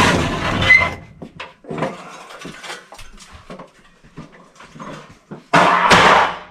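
Old evaporator coil scraping and rattling against its sheet-metal cabinet as it is slid out, then scattered knocks from handling it, and a second loud burst of clatter near the end.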